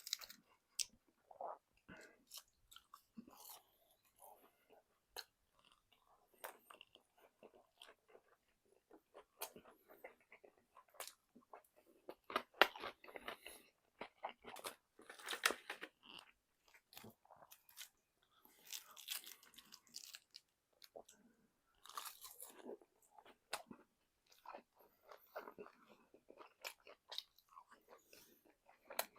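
Close-miked chewing and biting of crunchy fried chicken: irregular crisp crackles and crunches, in clusters, with short gaps between bites.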